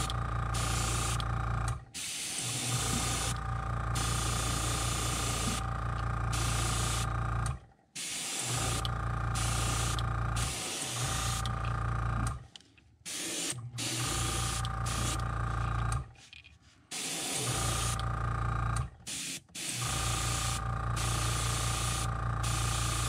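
Airbrush misting paint onto a crankbait with a steady hiss, over the steady hum of a small motor. The sound breaks off briefly several times, at about 2, 8, 13, 17 and 19 seconds in.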